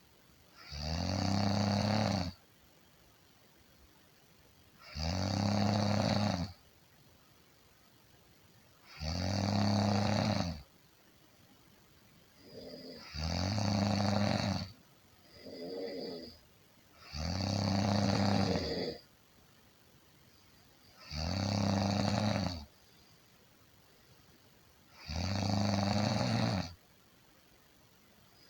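A person snoring in a slow, even rhythm: seven deep snores, each about a second and a half long and about four seconds apart. About midway through, a shorter, quieter snore falls between two of them.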